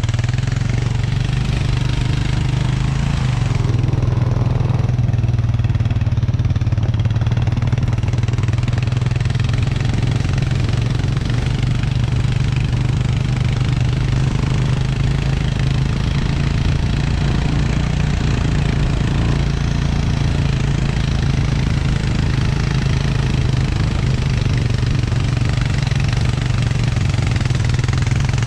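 Engine of the towing vehicle running steadily under light load as it pulls a dead dirt bike along on a strap, with wind and riding noise over it. The engine note shifts slightly a few seconds in, then holds steady.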